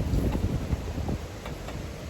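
Wind buffeting the microphone, an uneven low rumble, with a few faint ticks over it.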